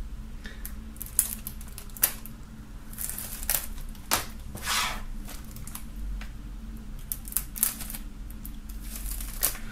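A knife working the plastic shrink-wrap film off CD jewel cases: short scratchy swipes of the blade across the film, with sharp plastic clicks and taps from the hard cases being handled.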